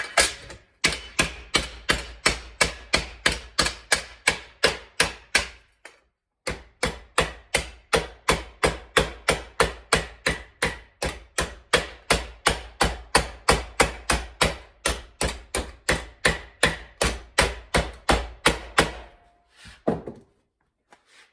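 Steady hammering on sheet steel, about three sharp strikes a second, as a patch panel is hand-formed. It breaks off for a moment about six seconds in, then resumes and ends with a few lighter taps.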